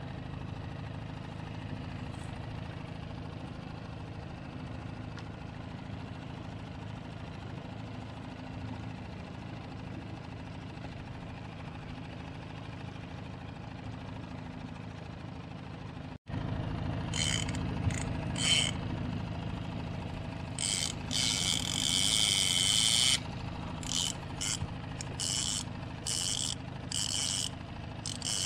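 Small Honda outboard motor running steadily at trolling speed. About halfway through, a fishing reel's drag starts screaming in high-pitched bursts as a hooked mahi mahi takes line: one long run of a couple of seconds, then a string of short pulls.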